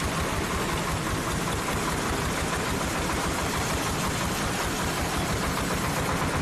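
Farm vehicle engine running steadily, with an even low chugging pulse.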